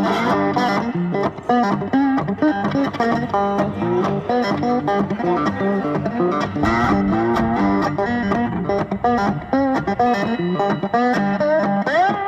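Background music track led by guitar, with plucked notes over a steady beat.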